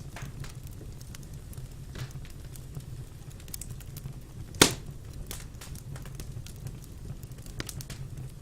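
Wood fire burning in a fireplace, crackling with scattered small pops and one sharp, much louder pop about halfway through.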